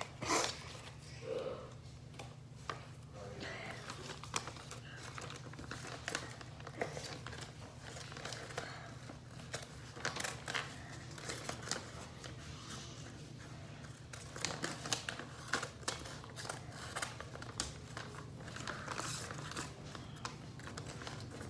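Scissors snipping through notebook paper in short, irregular cuts, with the paper rustling and crinkling as it is turned in the hand. A steady low hum runs underneath.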